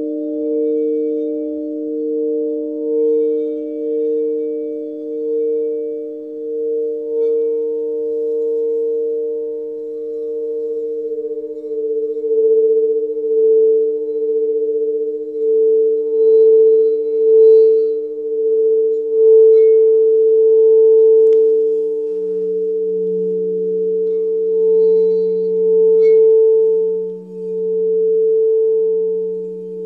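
Alchemy crystal singing bowls ringing in sustained, overlapping tones, the strongest one swelling and fading in a slow, wavering pulse. A lower bowl tone joins about two-thirds of the way through.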